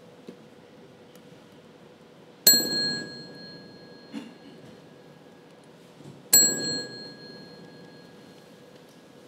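A desk call bell struck twice, about four seconds apart, each ding ringing clear and fading over a second or two.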